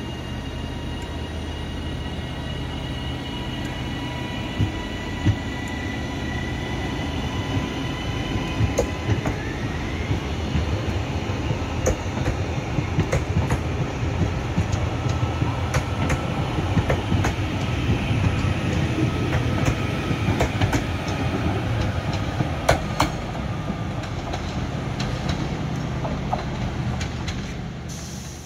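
Northern Class 331 electric multiple unit accelerating past, its traction motors whining with a tone that rises about ten seconds in. The wheels click over rail joints as the carriages roll by.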